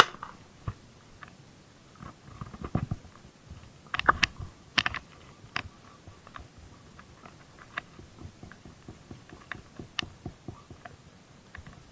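Close handling noise as fishing line is wound by hand onto a small plastic bottle spool: irregular sharp clicks and taps with brief crackly rustles, busiest about two to five seconds in.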